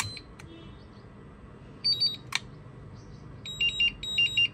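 iMAX B6 hobby charger beeping as its Start button is pressed, with a click about two seconds in. From about 3.5 s it sounds a fast repeating two-tone beeping alarm, about two groups of beeps a second, signalling a "connection break" error: the charger is not getting a proper connection to the battery.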